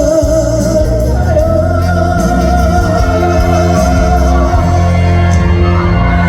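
A Korean trot ballad played loud with full band backing: a steady bass line and long held melody notes with a light waver.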